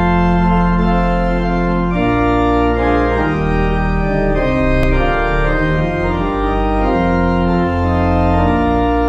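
Organ playing slow, sustained chords over a deep bass line, the chords changing every second or two.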